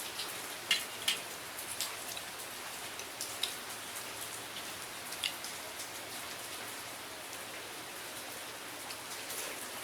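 Steady rain hiss with scattered sharp clicks and ticks on top, most of them in the first half.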